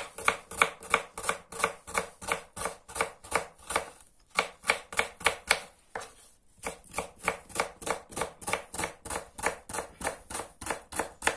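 Kitchen knife slicing onion on a wooden cutting board: a steady run of sharp chops, about three to four a second, broken by two short pauses near the middle.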